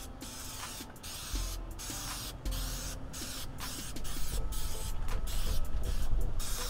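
Aerosol spray can of black removable coating hissing in a series of short bursts as a first coat is sprayed on.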